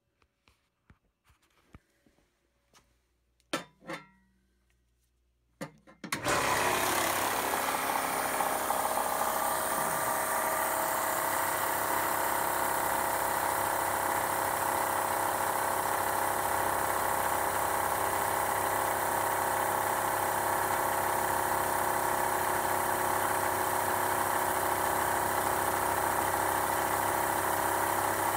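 A few faint clicks, then about six seconds in a RIX SA-3E electric oil-free scuba compressor switches on and runs steadily. It is building pressure against its back pressure regulator, which holds the air back until 1800 psi.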